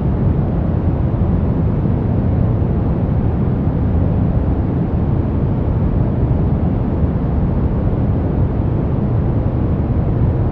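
Steady brown noise: a deep, even rumbling hiss, heaviest in the bass and dull at the top, with no changes.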